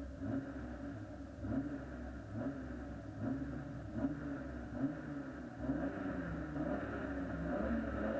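Competition car's engine running at a standstill, its pitch wavering up and down with light blips of the throttle, climbing and getting louder near the end.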